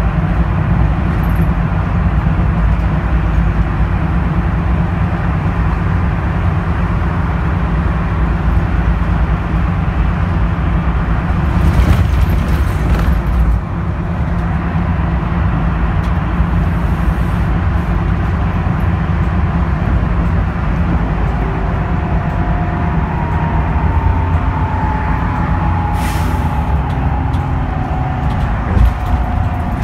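Cabin ride noise of a 2013 NABI 42-BRT transit bus cruising at freeway speed: the steady low drone of its Cummins Westport ISL G natural-gas engine mixed with road noise. Short hisses come twice, about twelve seconds in and again a few seconds before the end.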